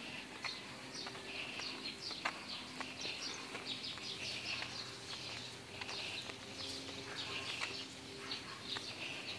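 Footsteps on a concrete road, about two a second, with birds chirping throughout and a faint steady hum underneath.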